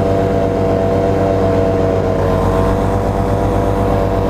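Black Hawk 125 paramotor's single-cylinder two-stroke engine and propeller running steadily in flight, its pitch easing down slightly about two seconds in and then holding.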